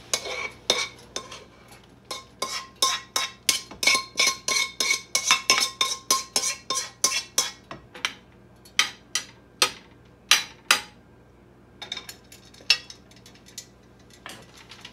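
A cooking utensil scraping and tapping against a nonstick wok as stir-fried vegetables are pushed out onto a plate. The taps come quickly, about three a second, for the first seven or so seconds with a faint ring, then slow to scattered knocks.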